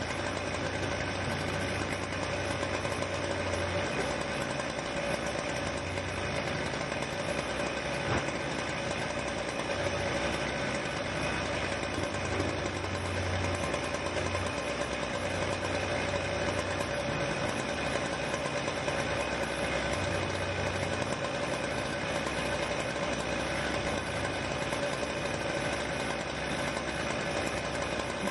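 Diesel engines of excavators at a building demolition, running steadily. A low engine drone swells and eases now and then, and there is a single knock about eight seconds in.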